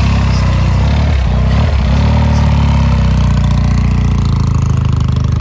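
Vintage cafe-racer motorcycle engine running loud and steady, its note rising and falling a few times as the throttle is worked.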